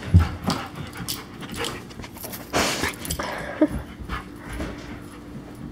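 German Shepherd panting and moving about, in irregular short breaths and scuffs, with a sharp thump just after the start and a louder burst of noise about two and a half seconds in.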